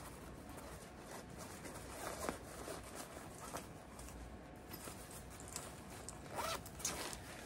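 Faint rustling and handling of cross-stitch projects, with a zipper being pulled.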